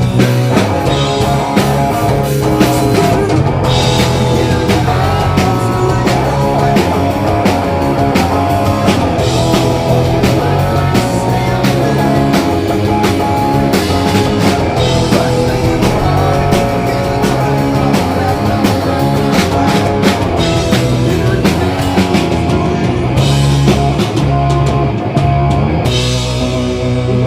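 Rock band playing an instrumental stretch with drum kit and electric guitar, no vocals.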